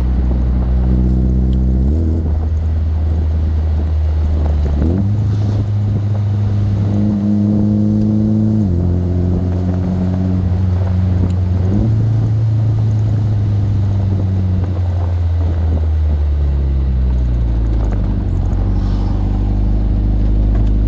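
Triumph Spitfire Mk IV's four-cylinder engine pulling along the road. Its note jumps abruptly to a new pitch several times, then drops gradually near the end.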